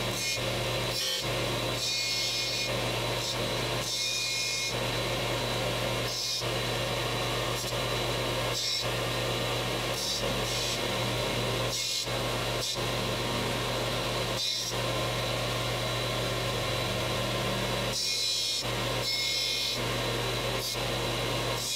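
Combination belt-and-disc sander running with a steady motor hum while 3 mm copper electrode rods are pressed against the sanding disc to shape them. The contact gives short bouts of grinding that come and go, loudest about two and four seconds in and again near the end.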